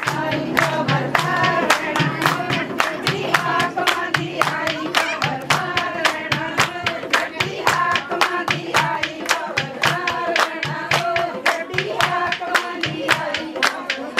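Several voices singing together, kept in time by a steady beat of sharp claps, about four a second.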